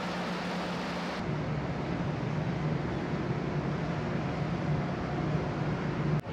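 Steady low hum of the car ferry Rokko's engines under a broad rush of wind and air on its open deck. The background changes abruptly about a second in and briefly drops out just before the end.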